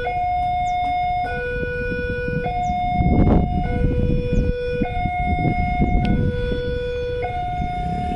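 Railway level-crossing warning alarm sounding, a two-tone electronic hi-lo signal that switches between a higher and a lower note about every second and a quarter, with road traffic noise around it.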